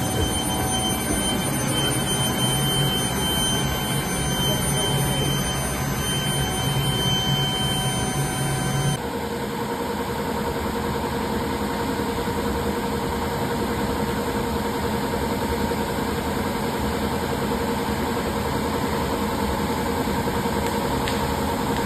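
Steel melting furnace running under test: a steady electrical hum and several steady high-pitched whines over a noisy hiss, typical of a medium-frequency induction melting furnace. The sound changes abruptly about nine seconds in, with the tones shifting, then runs steady again.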